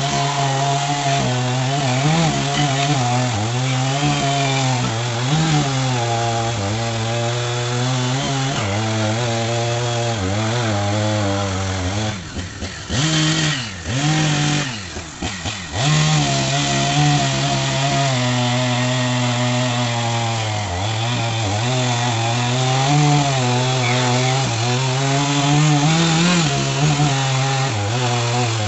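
Two-stroke chainsaw cutting eucalyptus logs into firewood. The engine runs at high revs with its pitch sagging and recovering under load. About halfway it drops off briefly a couple of times and revs back up.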